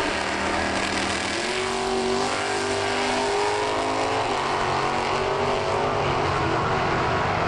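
Two drag-racing sedans running flat out side by side down the strip, their engines at full throttle with a loud, steady roar whose pitch shifts through the run.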